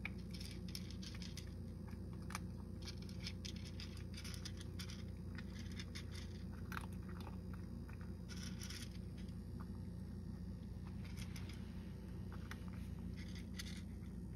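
A cat crunching dry kibble: a steady run of small, irregular crunches, over a steady low hum.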